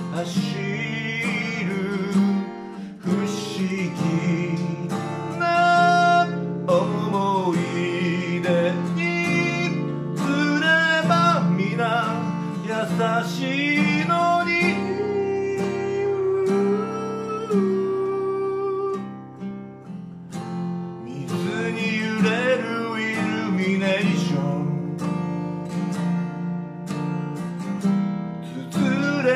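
A man sings in Japanese to his own strummed Asturias steel-string acoustic guitar. He holds one long note a little past the middle. His voice drops out briefly, leaving the guitar, before the singing resumes.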